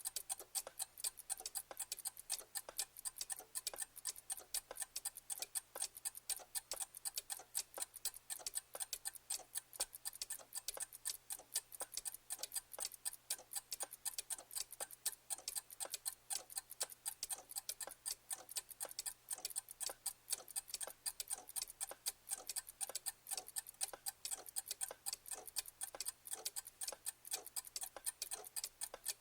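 Clock ticking: sharp, bright ticks, several a second, running on without pause.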